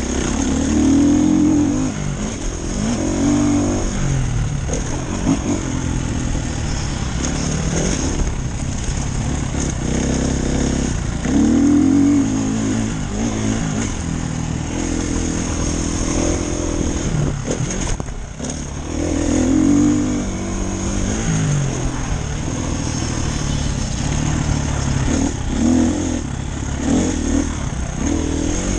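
Dirt bike engine being ridden hard around a motocross track: the revs climb and fall again and again as the throttle is opened and rolled off through the gears, heard from the rider's helmet camera. The engine drops off briefly about two-thirds of the way through, then revs up again.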